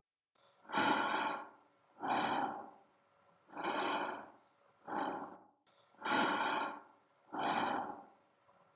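An astronaut's slow, steady breathing in a spacesuit helmet: six breaths, each under a second, with a short silence between each.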